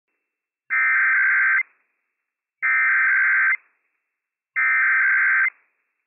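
Emergency Alert System SAME header: three identical bursts of buzzy digital data tones, each just under a second long and about a second apart, encoding a Required Weekly Test broadcast by NOAA Weather Radio station WWF56.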